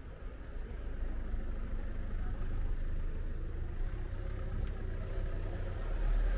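Delivery van's engine running at low speed as it passes close by, a steady low rumble that grows louder near the end.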